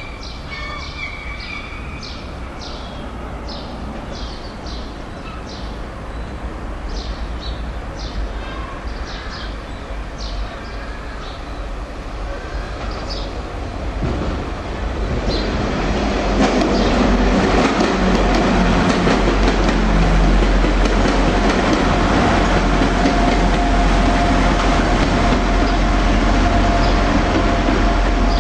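Birds chirping over a faint low rumble. About halfway through this gives way to a Class 175 diesel multiple unit running past close by, building to a loud, steady mix of engine and wheel noise with a thin steady whine over it.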